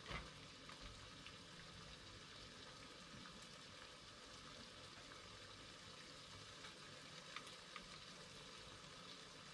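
Faint sizzling of food cooking on a tabletop electric grill, a steady soft hiss with a few small pops.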